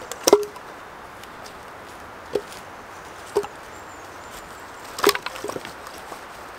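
Cut logs knocking against each other as they are stacked into a woodpile. A loud wooden clonk with a short ring comes just after the start, then two lighter single knocks, and a quick cluster of knocks about five seconds in.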